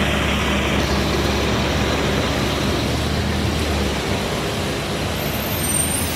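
City transit bus engine running as the bus pulls away over wet pavement, a steady low hum under a constant hiss of wet road noise; the lowest part of the engine hum drops away about four seconds in.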